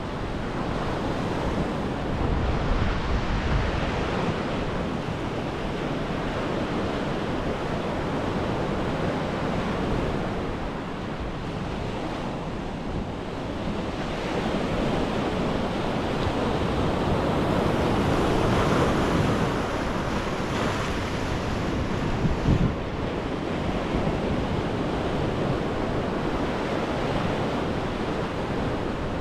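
Mediterranean surf washing onto the beach: a continuous rush of breaking waves that swells and eases every few seconds, with wind rumbling on the microphone.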